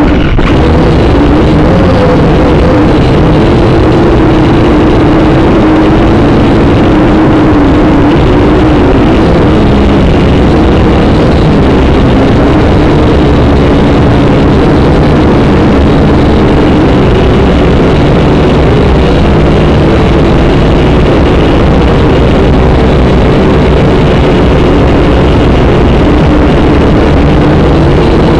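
Syma X5C quadcopter's four small brushed motors and propellers buzzing loudly, heard right at the drone's onboard camera. The pitch wavers up and down with the throttle as it flies.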